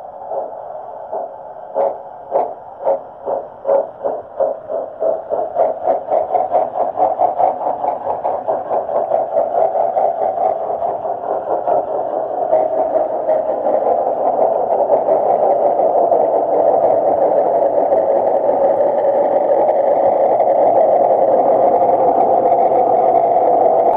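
Digitally reproduced steam-locomotive chuffing from the ESU LokSound decoder in a Märklin Hamo BR 53 model Mallet locomotive as it starts off with a long train. The exhaust beats come about two a second at first, quicken steadily and by about halfway through have run together into a continuous rushing sound that slowly grows louder as the model gathers speed.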